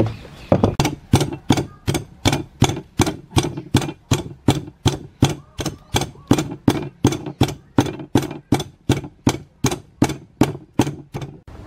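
Wooden pestle pounding garlic, red chilies and salt in a wooden mortar: a steady run of loud knocks, about two and a half a second, that stops just before the end.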